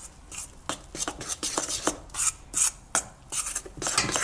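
A spoon stirring and scraping flour-and-kefir dough around a stainless steel bowl, in repeated scraping strokes two or three a second.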